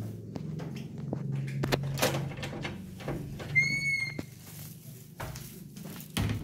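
Doors and a door lock being handled: several sharp clicks and knocks, a short high squeal about halfway through, and a heavier knock near the end.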